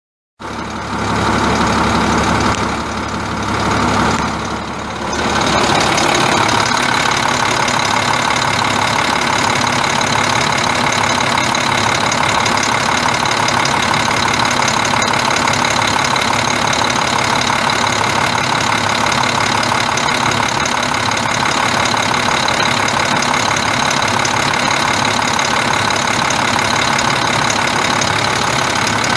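International DT466 inline-six turbo diesel engine of a dump truck idling. It is uneven for about the first five seconds, dipping twice, then settles into a steady idle.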